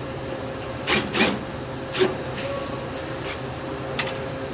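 A few short, sharp clicks and knocks, irregularly spaced, over a steady machine hum with a faint constant tone.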